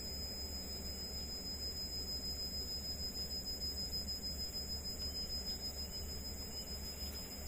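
Steady heavy rain noise, with a thin, steady high-pitched whine over it.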